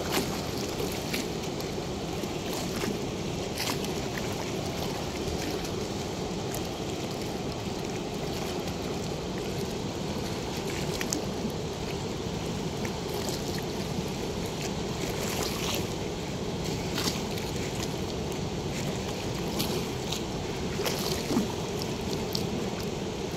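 Steady rushing of water pouring through a river weir's floodgate, with scattered sharp clicks over it.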